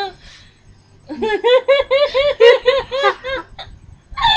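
A girl laughing hard: a rapid run of high-pitched "ha"s, about five a second, starting about a second in and lasting some two seconds.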